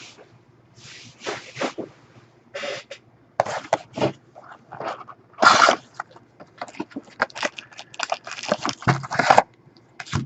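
Irregular rustling and crinkling of trading-card packs and a cardboard box being handled and opened, in short uneven bursts with a louder crackle about halfway through.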